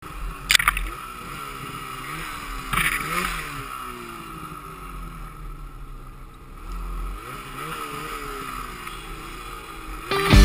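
Snowmobile engine revving up and down again and again as the sled works through deep snow, with a sharp knock about half a second in and another near three seconds. Music starts just before the end.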